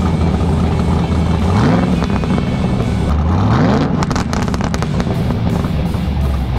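An engine running steadily and revving up twice, about two seconds in and again near the middle, mixed with music.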